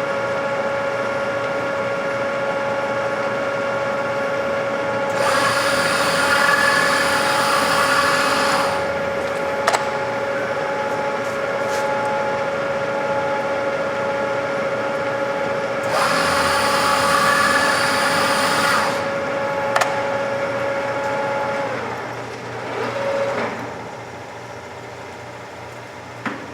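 Stanko ZM50 lathe running with a steady whine, interrupted twice by louder hissing spells about three seconds long, each followed by a sharp click. The whine stops about 22 seconds in, leaving a lower hum.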